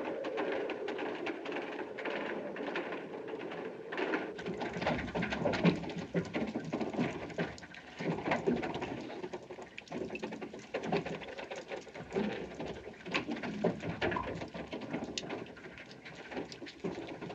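Wooden gearing of a working windmill turning. It makes a dense, irregular clatter of creaks and knocks, which grows busier about four seconds in.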